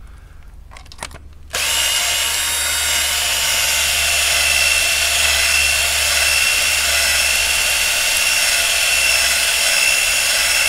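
A cordless drill starts about a second and a half in and runs steadily with a high whine, spinning a cleaning tool down in a diesel injector bore of the cylinder head.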